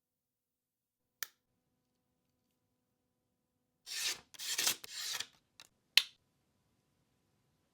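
Hands unboxing a Victorinox Swiss Army knife: a click, then about a second and a half of rubbing and scraping, then a sharp click.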